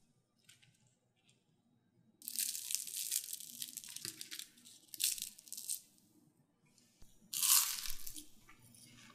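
Crisp fried potato spiral being pulled apart by hand, crackling and crunching. It starts about two seconds in and goes on for about four seconds with a few sharper cracks, then comes again briefly near the end.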